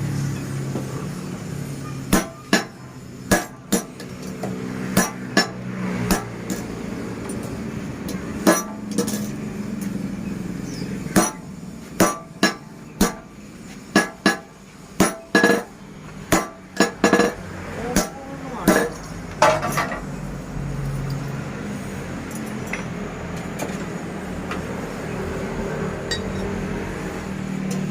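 Hammer blows on metal at a blacksmith's forge: sharp, ringing strikes at an irregular one to two a second, sometimes in pairs. They stop about two-thirds of the way through, leaving a steady low hum.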